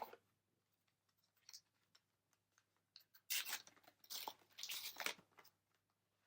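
A foil trading-card booster pack being torn open, crinkling and tearing in a few rapid bursts lasting about two seconds, starting about three seconds in.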